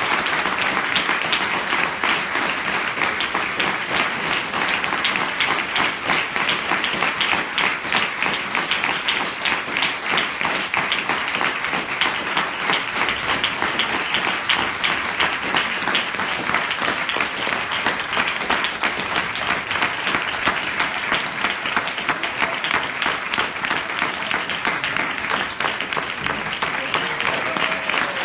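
Audience applause: many hands clapping in a steady, sustained ovation.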